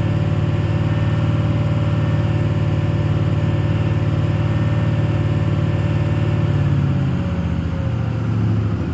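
Ford 6.0 Power Stroke V8 turbodiesel held at raised revs and running steadily. The pitch eases down slightly about seven seconds in as the throttle is backed off a little. This truck runs rough at idle but pretty smooth at high revs.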